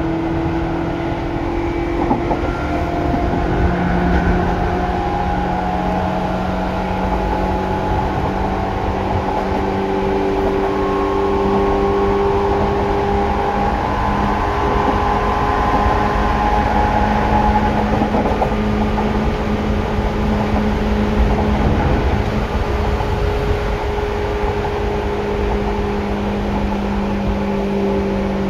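Seibu 2000-series electric train under way, its traction motors and gears whining loudly in several steady tones that drift slowly up and down in pitch over a constant rumble of the wheels on the track.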